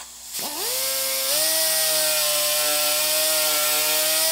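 Small die grinder spinning up with a rising whine about a second in, then running at a steady high-pitched whine with a hiss as it smooths the plastic housing of a MAP sensor where an ear tab was cut off.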